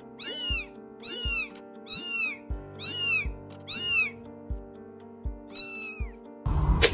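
Music built from high-pitched cat meows, one about every 0.7 seconds, over sustained chords and short low bass hits. Near the end it cuts to a louder, noisy sound.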